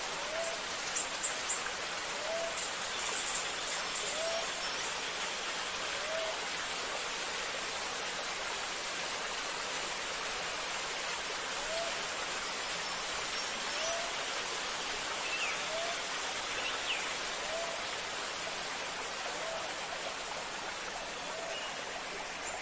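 Steady hissing outdoor background noise, with a faint short rising chirp repeating every one to two seconds.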